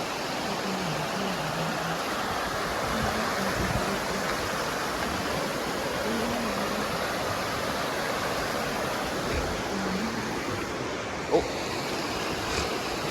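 Steady rushing of flowing river water, with a single sharp knock about eleven seconds in.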